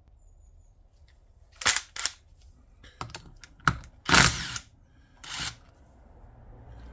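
A run of sharp metallic clicks and clacks as tools are picked up and a socket is fitted to a cordless impact driver, with the loudest clatter just after four seconds in.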